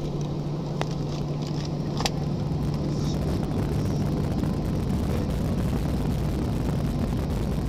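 Jet airliner's cabin noise while taxiing: the engines run with a steady low hum and drone. Two short clicks come in the first two seconds.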